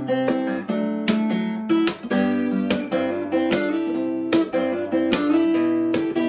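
Solo steel-string acoustic guitar played fingerstyle with a capo, picking a melody over bass notes and chords, with a fresh pluck or chord every half second or so. The sound is a phone's built-in microphone, with no external mic or line input.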